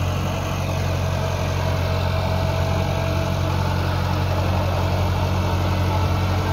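Massey Ferguson 375 tractor's Perkins four-cylinder diesel running steadily under load, dragging a leveling plank through a flooded, puddled field.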